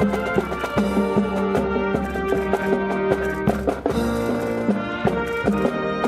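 Band music led by brass, with held chords and frequent drum strikes.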